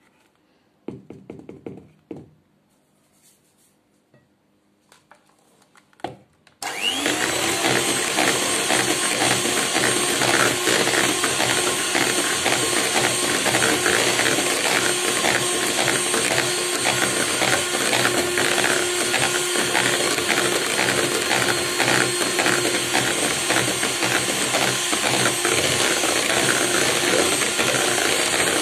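Electric hand mixer whipping cream in a bowl: after a few soft spatula scrapes against the bowl, the mixer switches on about six seconds in and then runs steadily, its beaters churning through the thickening cream.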